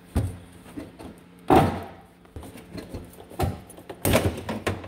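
Knocks and clunks of a stiff black plastic cover being wrenched and pried loose from the underside of a truck hood. The loudest clunk is about a second and a half in, with a quick cluster of clatters near the end.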